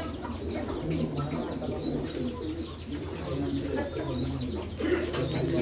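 Several domestic pigeons cooing, their calls overlapping without a break, over a steady low hum.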